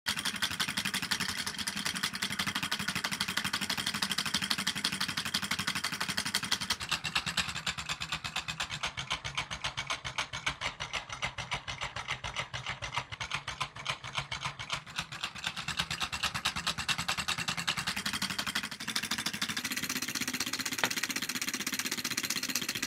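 Homemade six-cylinder solenoid engine running: magnet-tipped pistons snapping in and out of copper coils, pulsed by an oscillator driver circuit, make a fast, continuous clattering rattle. Its pace shifts about 7 seconds in and again near 19 seconds.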